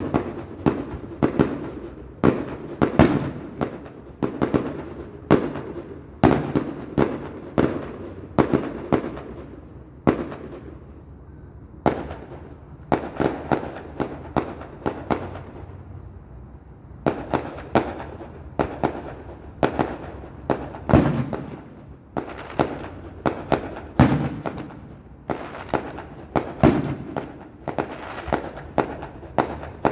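Fireworks display: sharp bangs going off irregularly, often several a second, each trailing off in an echo. The bangs thin out to a few scattered pops twice in the middle, then build again.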